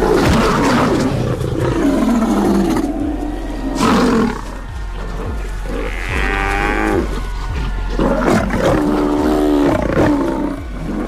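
Lions growling and roaring while attacking a Cape buffalo bull, in repeated rough calls of changing pitch, over a music score.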